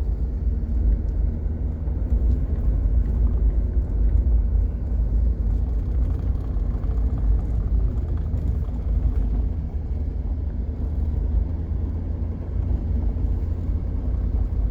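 Steady low rumble of a car driving on a gravel road, heard from inside the cabin: tyre and engine noise.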